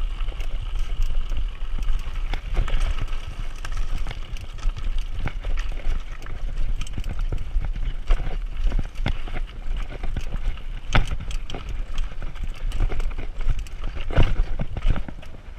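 Mountain bike clattering over a rocky trail: tyres crunching on loose stones and the bike knocking and rattling over bumps, with a steady rumble of wind on the microphone. Two hard knocks stand out in the second half.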